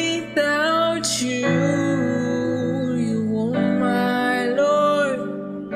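A song: a voice singing long, drawn-out notes that bend in pitch, over guitar accompaniment.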